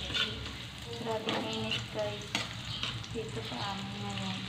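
Chopped garlic sizzling in hot oil in a wok while a metal ladle stirs it, scraping and clicking against the wok now and then.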